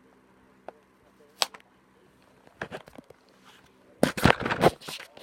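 Hot Wheels blister package being handled and torn open: a sharp click about a second and a half in, a few crackles around three seconds, then a loud burst of crackling and tearing about four seconds in that lasts under a second.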